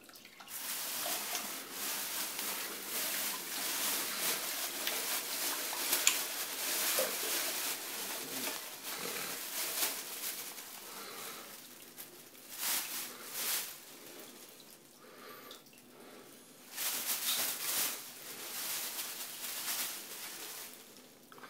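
A rat splashing in toilet bowl water and a plastic bag rustling as the rat is scooped out, a steady scuffling noise with a few louder bursts in the second half.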